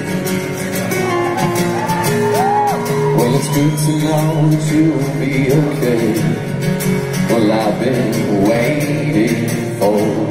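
Live acoustic band: a male lead vocal sings over strummed acoustic guitars and a cajón.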